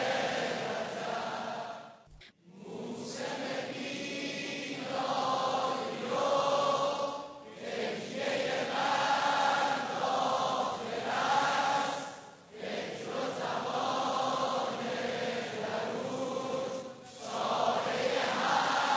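A large crowd of young men singing a devotional chant together, in phrases of about five seconds with a short breath between each.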